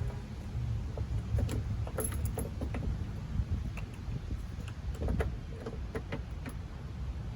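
Scattered small metallic clicks and rattles as a Mercedes W123 door handle and its lock are turned and worked loose from the door, over a steady low rumble.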